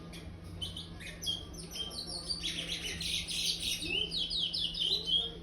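Young chestnut-bellied seed finch (curió), a five-month-old bird still in brown plumage, singing the 'praia' song type: a long run of quick, high chattering notes that grows denser and louder about halfway through and stops just before the end.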